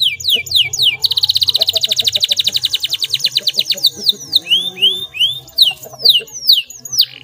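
Domestic canary singing: quick downward-sweeping notes, then about a second in a fast rolling trill of roughly a dozen notes a second lasting nearly three seconds, then curved rising and falling notes again.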